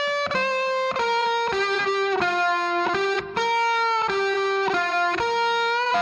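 Background music: a melody of held notes, changing a few times a second, with a brief break about three seconds in.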